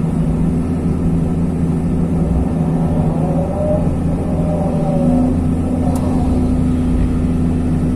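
Hyundai R220 excavator's diesel engine running steadily as the machine works, with a faint whine rising and falling around the middle, the engine note firming up about five seconds in, and a single light click near the end.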